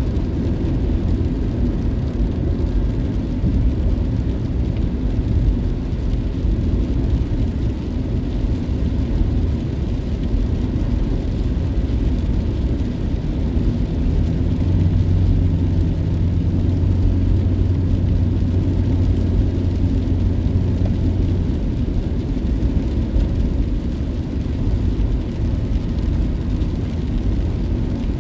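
Steady road and engine drone heard from inside a moving car, with a low hum that swells for several seconds in the middle.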